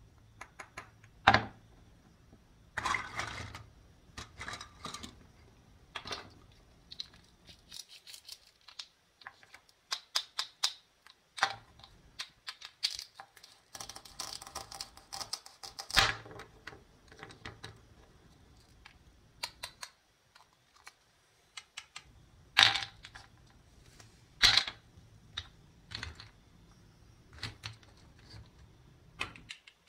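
Wooden toy play-food pieces being handled: halves of a toy tomato clicking together and apart, a wooden toy knife tapping through a toy strawberry on a wooden cutting board, and pieces knocking as they are set down. Irregular light clicks and taps throughout, with a few sharper knocks.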